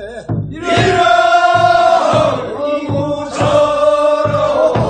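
Group of men singing the refrain of a Korean rice-paddy weeding song (non maeneun sori, second weeding) from Boeun, answering the lead singer in call-and-response. The chorus comes in about a third of a second in with long held notes, over a low beat keeping time.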